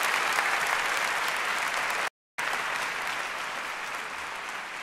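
Theatre audience applauding steadily. The sound cuts out completely for a split second about two seconds in, then resumes and slowly dies away.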